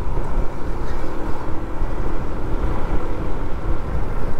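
Motorcycle riding at steady speed: wind rushing over the camera microphone, with engine and road noise underneath and a faint steady hum.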